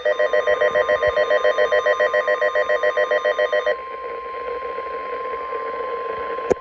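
A rapidly pulsing electronic tone, about seven pulses a second, for nearly four seconds, then the steady 1050 Hz NOAA Weather Radio warning alarm tone comes on and holds over radio static. A sharp click near the end.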